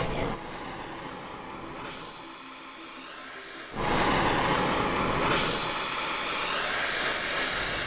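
Oxy-fuel gas torch burning: a softer hiss while the flame is a lazy yellow fuel-gas flame, then about three and a half seconds in it jumps to a louder, steady hiss as the oxygen is opened and the flame becomes a hot blue cone for heating steel.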